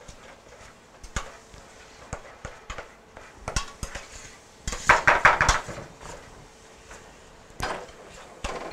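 Kitchen utensils knocking and scraping against a mixing bowl and a metal baking pan as thick cornbread batter is worked out of the bowl into the pan. There are scattered light knocks, with a louder run of clattering about five seconds in.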